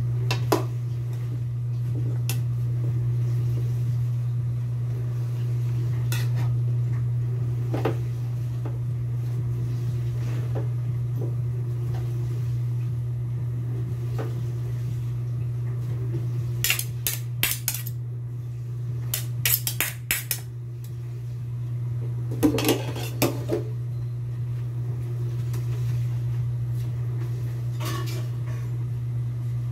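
Metal spatula clinking and scraping against a large metal wok while moringa leaves are stirred into a jackfruit and coconut-milk stew, in scattered strokes that come thickest a little past halfway. A steady low hum runs underneath.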